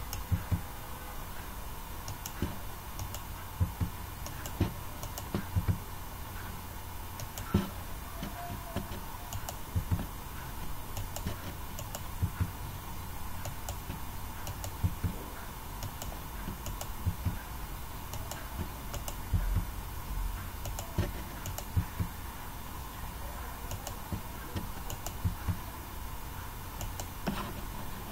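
Irregular clicks of a computer mouse and keyboard keys as vertices are moved in a 3D modelling program, a few at a time with short gaps, over a steady faint electrical hum.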